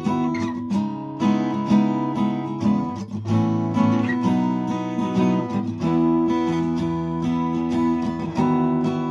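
Vintage steel-string acoustic guitar playing strummed chords in a steady rhythm, the chords changing every second or so.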